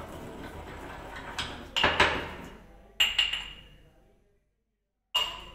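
Steel kitchen utensils clinking against each other over a steady hiss: a few sharp metallic clinks, the loudest about two seconds in, each ringing briefly.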